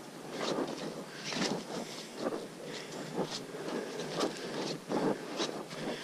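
Footsteps on a soft, muddy dirt trail, about two steps a second, over a steady hiss.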